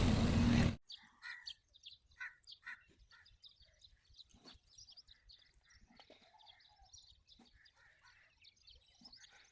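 A loud, steady motor noise cuts off abruptly under a second in. Faint, scattered bird chirps follow.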